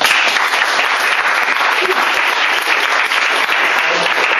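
Applause from a small group of seated onlookers, hand clapping that starts suddenly and holds steady.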